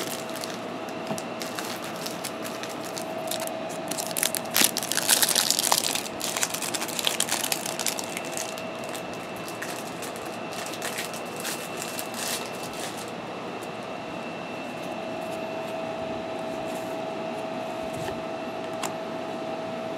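Trading-card pack wrappers crinkling and tearing as packs are handled and opened, loudest about four to seven seconds in, with scattered clicks of cards being handled after that. A steady hum runs underneath.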